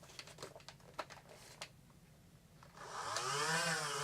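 Light plastic clicks and rattles of a foam-ball blaster being handled, then near the end the flywheel motors of a Nerf Rival Nemesis spin up with a rising whine that settles into a steady high-pitched running.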